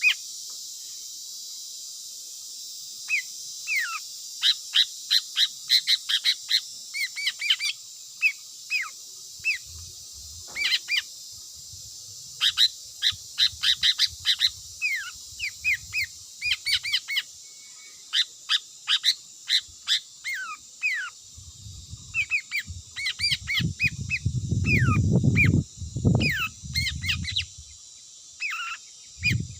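A bird calling in quick runs of short, sharp notes that slide downward, several a second with brief pauses between runs, over a steady high hiss. A low rumble rises and falls in the last third.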